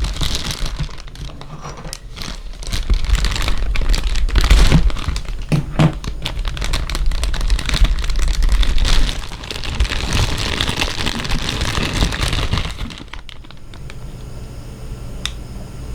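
Plastic packaging crinkling and crackling close to the microphone, with many small clicks and a heavy low rumble of handling. It drops to a few faint clicks about thirteen seconds in.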